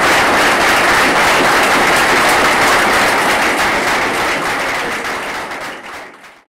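Crowd applauding steadily, fading out over the last couple of seconds.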